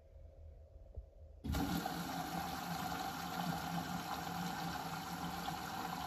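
Logic 8 kg front-loading washing machine running a wash cycle with clothes in the drum. Very quiet at first, then about one and a half seconds in a steady running noise with a low hum starts suddenly and holds.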